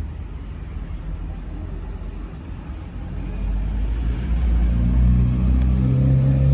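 Motor vehicle engine rumbling on the street, growing louder from about three seconds in as its low engine note comes up.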